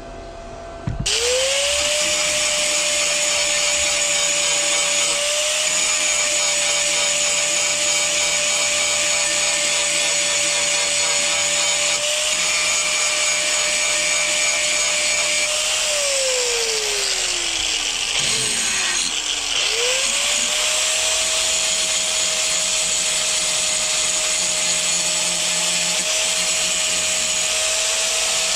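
Electric angle grinder switched on about a second in, spinning up to a steady high whine with a loud hiss. Near the middle it is let go and coasts down for a few seconds with its pitch falling, then is switched on again before it stops and spins back up to full speed.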